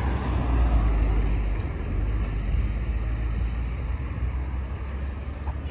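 Road traffic noise: motor vehicles going past with a steady low rumble, a little louder about a second in.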